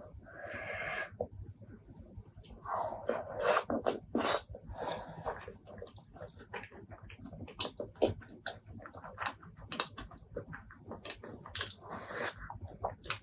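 Close-miked wet eating sounds of spicy pork leg curry and rice: chewing and lip-smacking clicks throughout, with a few louder slurping, sucking bursts near the start, around the middle and near the end.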